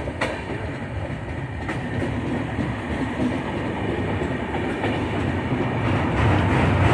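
A moving train rumbling along the rails, with a few faint clacks, growing louder near the end.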